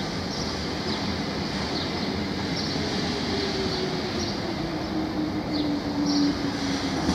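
Lisbon Remodelado two-axle electric tram rolling slowly on its rails, a steady rumble under a motor whine that falls slowly in pitch through the second half. Short, high wheel squeaks come every second or so as it takes the curve in the track.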